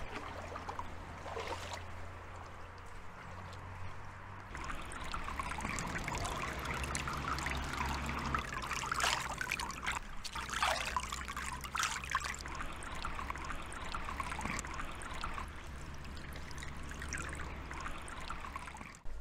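Water trickling and splashing unevenly, from the small outdoor wading basin of a foot-bath facility and the water running into it.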